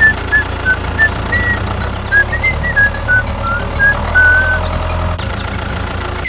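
A mini tractor's engine running with a steady low rumble. Over it comes a string of short high notes that change pitch like a simple tune.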